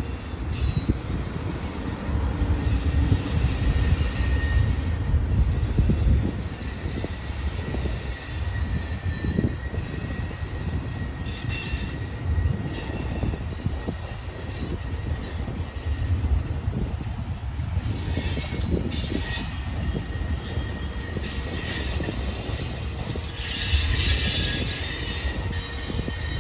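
Freight train tank cars and covered hoppers rolling past, with a steady low rumble of wheels on rail and a thin, high wheel squeal. The squeal gets louder and harsher near the end.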